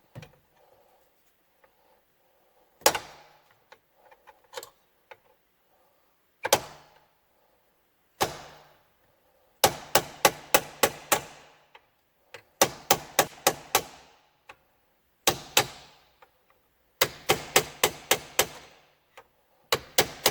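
Hammer tapping a punch against the head of a break-off safety screw on a Ford ignition lock cylinder housing, knocking it sideways to crack it loose. A few single taps, then quick runs of five or six sharp metallic taps, each ringing briefly.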